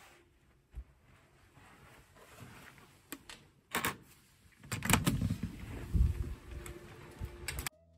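Hotel room door being unlocked with a keycard on an electronic card lock: a few sharp clicks as the card meets the lock, then the latch and handle clunk and the door is pushed open with low thumps about five and six seconds in.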